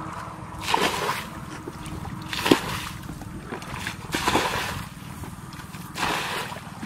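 Muddy ditch water being bailed with a plastic bucket: four splashing scoop-and-throw strokes, about one every second and a half to two seconds.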